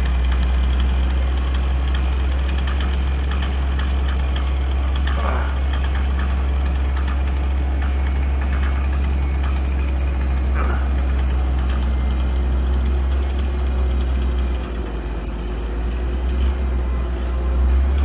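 Crane engine idling, a steady low hum that dips slightly and picks up again near the end.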